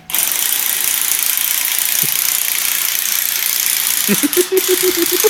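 Loud, steady hiss of pressurized gas rushing out of a small handheld can, starting abruptly. About four seconds in, a voice sounds over it.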